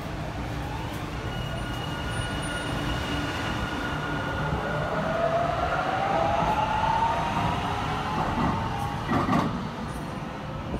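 LA Metro Gold Line light-rail train moving past and speeding up, its traction motors giving a whine that rises in pitch over a low rumble of wheels on rail. There is a sharp clack about nine seconds in.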